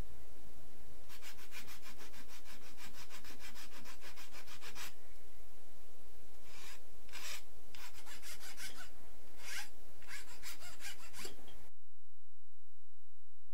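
Rasping strokes of a hand tool working a workpiece, in a quick even run of about four seconds and then shorter bursts. The sound cuts off abruptly near the end.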